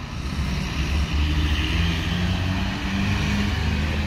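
Large bus engine running steadily at low revs, with a rushing hiss that swells and fades about a second or two in.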